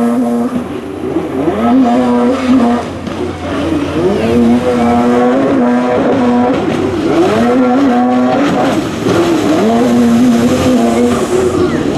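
Jet ski engines revving up, holding high, then easing off, again and again about every two to three seconds as the throttle is worked through the slalom course.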